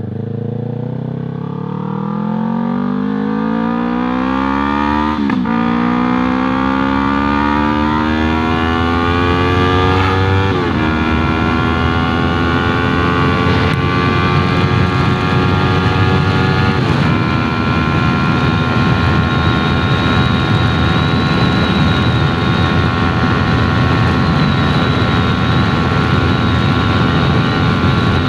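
Yamaha R3's parallel-twin engine through an aftermarket Arashi exhaust, accelerating hard: the revs climb and fall sharply at three upshifts, then hold high and steady at speed.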